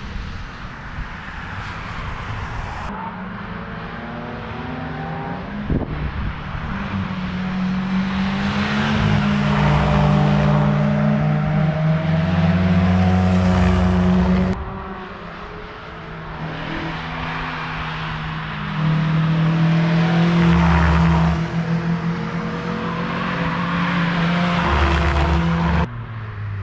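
Cars driving past on the Nordschleife one after another, engine notes swelling as each comes close, rising and falling in pitch, with tyre noise. The sound changes abruptly a few times where the footage is cut.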